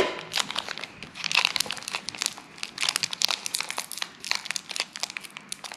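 Pokémon card packaging crinkling and tearing as it is opened by hand, a dense run of irregular crackles.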